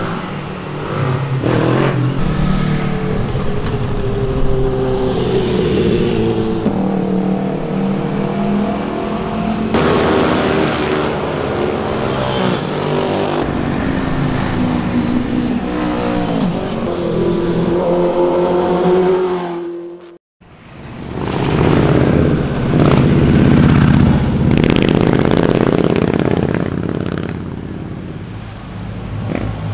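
Sport motorcycle engines revving and accelerating, the pitch rising and falling again and again as the bikes shift and ride past. About twenty seconds in, the sound cuts out for a moment and then more engine sound follows.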